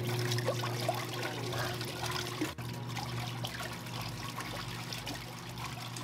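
Giantex/Costway mini twin-tub washing machine's wash motor running with a steady hum as the pulsator churns clothes in soapy rinse water, the water sloshing and splashing.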